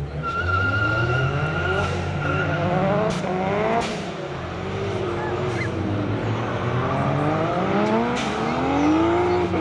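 Two drift cars accelerating hard in tandem, their engines revving up and dropping back repeatedly as they climb through the revs and change gear, with a steady high tyre squeal in the first few seconds.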